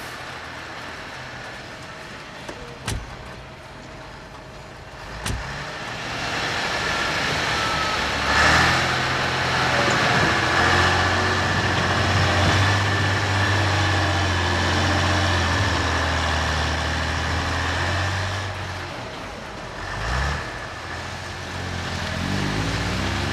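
Convertible sports car's engine running as the car pulls away and drives on. The engine grows louder about six seconds in, holds a steady low hum, and eases off toward the end. Two short sharp knocks come before it.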